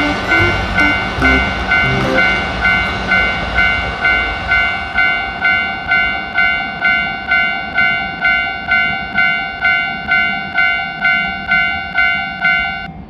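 Japanese railroad crossing warning bell ringing its steady "kan-kan", about two strikes a second, cutting off just before the end. A commuter train rumbles past under it during the first couple of seconds, then fades away.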